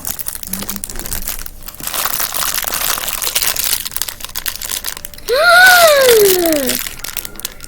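Plastic packaging crinkling and crackling as a small fidget toy's wrapper is handled and opened. About five seconds in comes a loud, high squeal lasting about a second and a half that rises slightly and then slides down in pitch.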